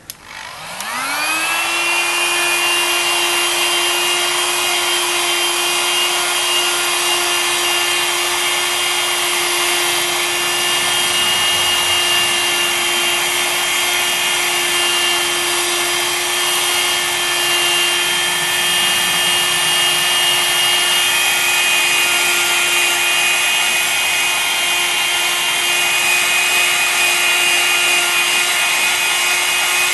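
Hot air gun switched on, its fan motor whining up to speed within about two seconds, then running steadily with a loud rush of air while it shrinks the membrane mesh.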